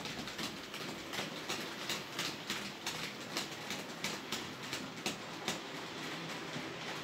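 TT-scale model freight train running along the layout track, its wheels clicking over the rail joints at about three clicks a second over a steady low running hum.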